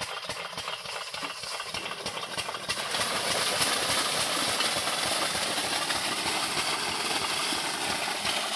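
A 12 hp single-cylinder diesel engine running with a steady beat, driving a belted centrifugal irrigation pump. About three seconds in, the pump starts delivering and water gushes out of its outlet pipe, a loud rushing splash that joins the engine and stays: the pump has picked up its prime.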